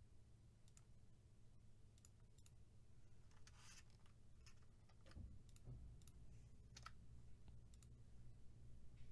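Faint, scattered clicks of a computer keyboard and mouse, over a low steady hum.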